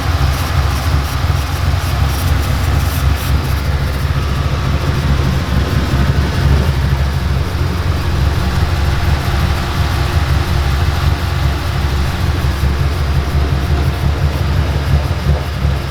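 Ford Mustang 5.0 V8 running at idle on a Lund ghost cam tune, which makes the idle chop, through American Racing headers, an X-pipe and Roush axle-back exhaust. It is loud and steady with a slightly uneven pulse.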